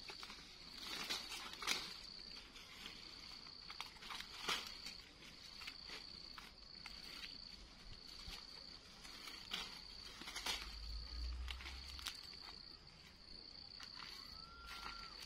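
Leaves rustling and small stems snapping in short irregular bursts as leafy branches are picked by hand from a hedge, over a steady high insect drone.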